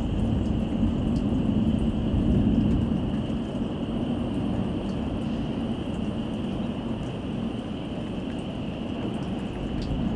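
Thunderstorm: steady rain with a low rumble that swells for a second or two near the start. Faint scattered ticks run throughout.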